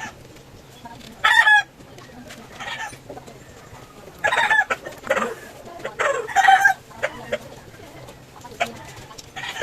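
Chickens calling in several short, pitched squawks, one every second or two, over a faint steady low hum.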